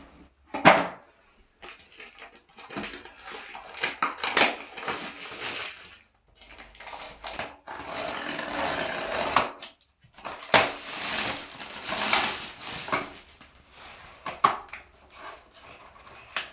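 Cardboard and plastic packaging of a towel bar being handled and opened by gloved hands: irregular rustling and crinkling with several sharp snaps and clicks.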